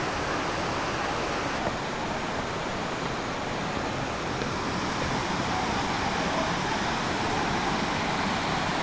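Steady rushing of a mountain stream flowing over rocks and boulders.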